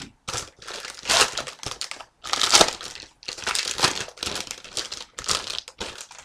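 Crinkling and crumpling of a trading card pack's wrapper as it is torn open and handled, in irregular bursts of rustling.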